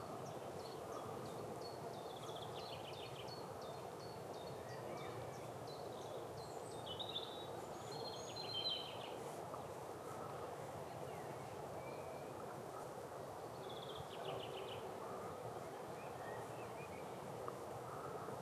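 Steady low background noise with small songbirds singing short, high trilled phrases three times, the loudest near the middle.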